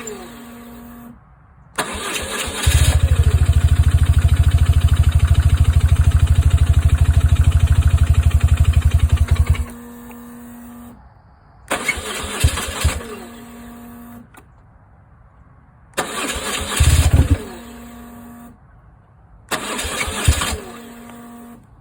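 2002 BMW R1150GS Adventure's boxer twin turning over on its electric starter without catching: one long crank of about seven seconds, then three short attempts of a second or so each. This is a no-start, even with a new Hall sensor and new fuel parts in the tank. A steady hum runs between attempts and cuts off in the pauses.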